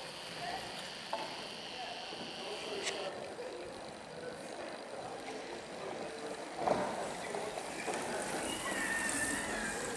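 Indistinct voices of people talking at a distance over outdoor ambience, with a single sharp knock about two-thirds of the way in.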